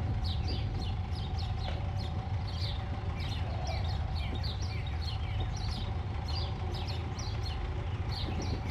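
Benelli TRK 502X parallel-twin engine running steadily at low revs while the motorcycle rolls along a dirt track. Over it, birds chirp over and over in short, high, falling notes, two or three a second.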